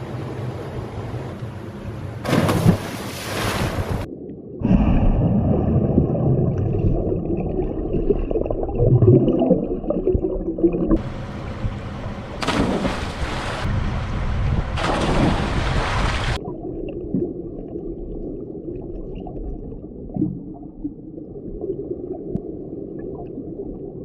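A swimmer plunging into a mountain pool: loud rushing splashes of water, with stretches of muffled underwater gurgling and rumble heard through a submerged camera.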